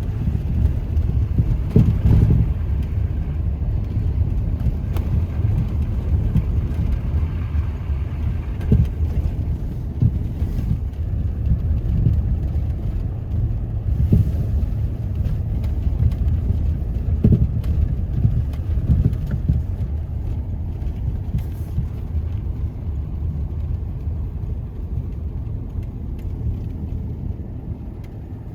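A car driving: a steady low rumble of engine and road noise, with a few brief bumps along the way, easing off slightly near the end.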